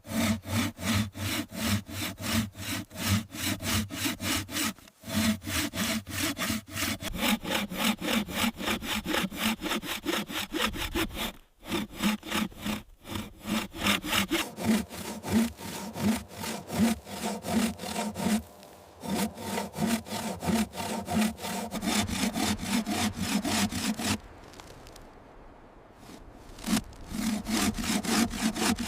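Hand saw cutting through firewood, quick, even back-and-forth strokes. It stops briefly a few times and goes quieter for a couple of seconds near the end before sawing again.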